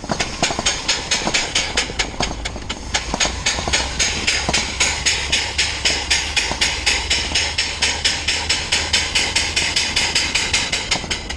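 Steam motorcycle's steam engine chuffing in a steady rhythm, about four to five exhaust puffs a second, while it runs on low boiler pressure.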